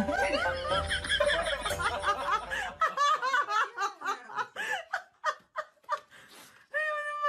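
Person laughing in repeated short, high giggles, crowded and overlapping over a low hum for about the first three seconds, then sparser and softer.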